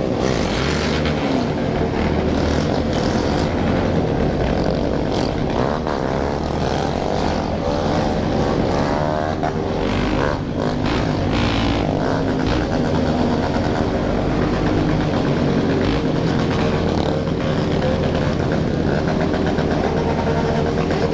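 A large group of motorcycles running together: a continuous dense engine drone with several bikes revving up and down over it.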